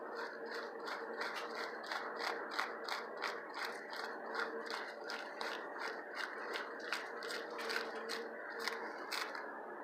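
Geared sausage stuffer being cranked, its gears clicking steadily at about three clicks a second as meat is pushed into the stuffing tube.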